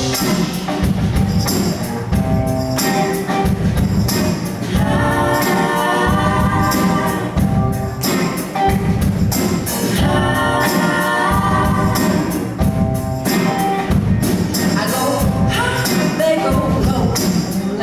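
A women's vocal group singing in harmony over a steady beat with jingling hand percussion.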